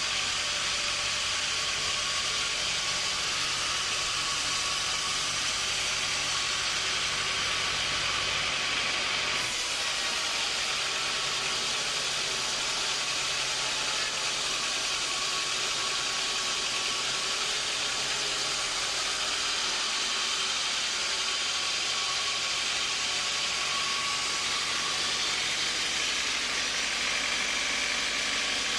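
Sawmill machinery running steadily: a loud, hissing whir over a low engine hum, with the sound changing abruptly twice, about a third and two thirds of the way through.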